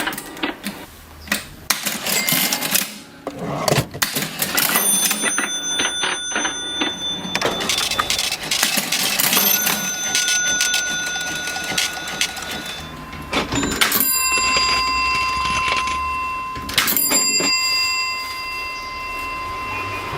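Vintage mechanical cash register being worked: keys and levers clattering, with its bell ringing about four times, each ring lingering for a few seconds.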